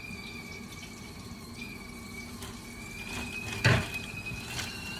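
Water heating toward the boil on the stove, giving a steady, slightly wavering high-pitched whine over a soft watery hiss. A single loud knock comes about three and a half seconds in.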